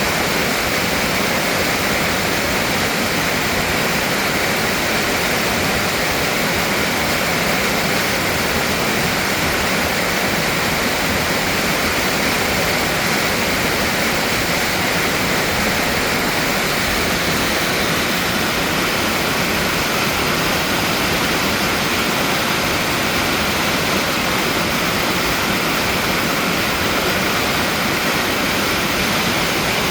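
Mountain valley stream, water rushing in a steady, unbroken rush.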